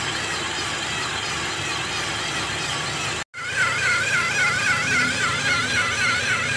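Toyota Innova petrol engine running with a humming whine like something rubbing, coming from around the belt-driven pulleys. The whine warbles up and down in pitch two or three times a second and comes through much more plainly after a brief break about three seconds in.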